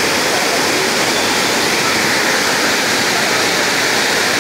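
Water spilling steadily over the curved masonry overflow weir of a full village tank and churning into the foaming channel below: a loud, unbroken rush.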